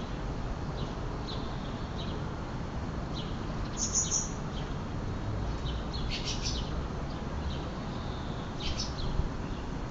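Small birds chirping outdoors: short, high chirps come and go throughout, with a quick cluster of louder chirps about six seconds in and another near the end, over a steady low background rumble.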